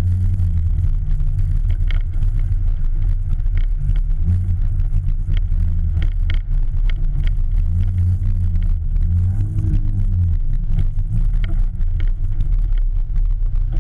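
Citroën Saxo rally car's engine running at low speed from a camera on the car's side, its note rising and falling gently as the car rolls along, with scattered light clicks over the steady low drone.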